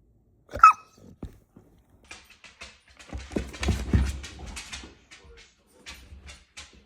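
A puppy gives one short high yip, then a few seconds of quick clicking and thudding as it scrabbles about, its claws ticking on a hard floor.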